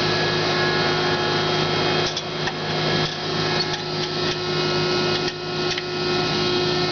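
Hydraulic CNC press brake running, its motor and hydraulic pump giving a steady hum, with a few faint clicks and brief dips in the sound in the middle while the machine is being operated.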